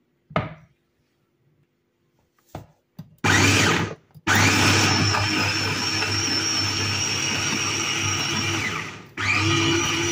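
A few knocks, then an electric mini chopper's motor running in pulses as it chops frozen strawberries with cream: a short burst about three seconds in, a long steady run with a high whine, a short stop near the end, then it starts again.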